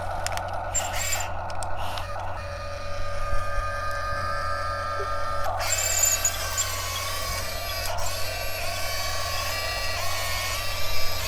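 Electric drive motors and gearboxes of a Top Race metal RC excavator whining as it drives on its tracks, with its simulated engine sound switched off; the pitch of the whine shifts about two seconds in and again past the middle as the controls change.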